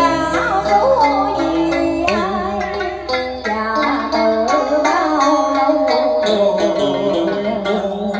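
Đàn sến, the Vietnamese two-string moon-shaped lute, playing a cải lương melody of plucked notes, many of them bent and wavering in pitch.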